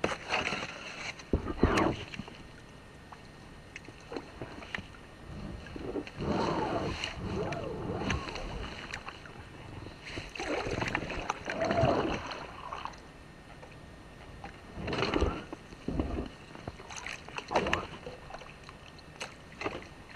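Kayak paddle strokes: water sloshing and splashing off the blades in irregular bursts every few seconds, with a few hollow knocks against the boat.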